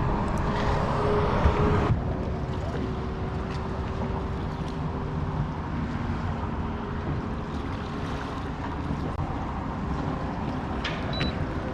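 Boat motor running steadily, a low hum with a faint steady tone, under wind noise on the microphone.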